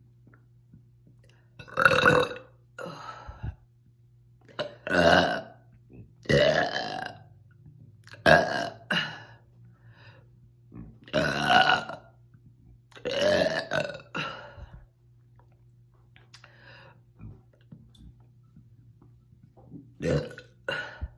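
A person burping loudly again and again, about nine separate burps, each under a second long, brought up by gas from drinking carbonated Diet Coke.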